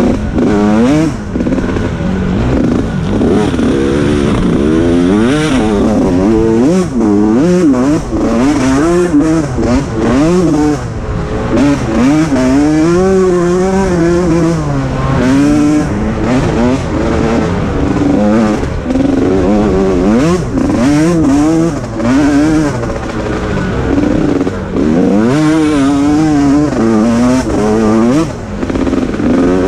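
Engine of a small Senior Mini class off-road racer, heard from an onboard camera, revving hard and dropping back over and over as it works through corners and gear changes, with wind and dirt noise over it.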